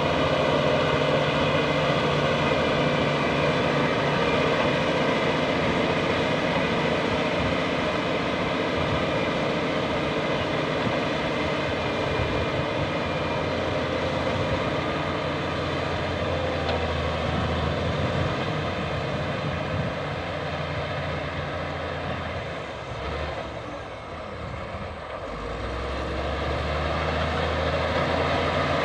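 Bulldozer's diesel engine running steadily under load. It eases off briefly about three quarters of the way through, then picks up again.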